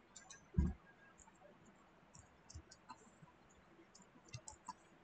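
Faint, scattered clicks of a computer keyboard and mouse as text is typed, with one louder low thump about half a second in.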